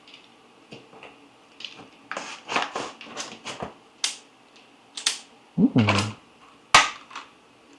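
Small hard objects handled and set down on a desk: a run of light clicks, taps and brief rustles, with one sharper click near the end. A short vocal sound comes about six seconds in.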